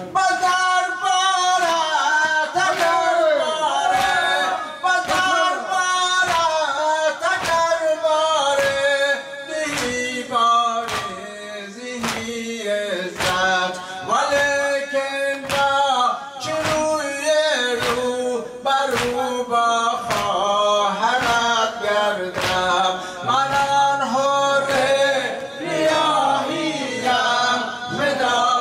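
A male reciter singing a Shia noha lament, with the seated mourners answering in unison and beating their chests (matam) in a steady rhythm, each beat a sharp slap.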